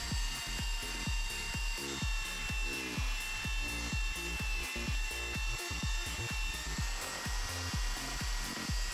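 Electronic background music with a steady beat, over a Ryobi belt sander running with mulberry wood pressed against its belt.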